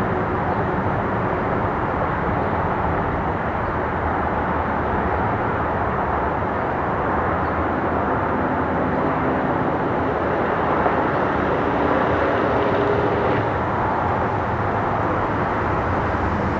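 Boeing 747 cargo jet's four turbofan engines on approach, landing gear down: a steady rush of jet noise, with faint hums holding at one pitch for a few seconds around the middle.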